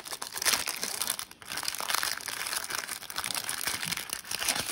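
Thin clear plastic wrap crinkling and tearing as it is peeled by hand off a small cardboard filter box. It is a dense, continuous crackle with a brief pause just over a second in.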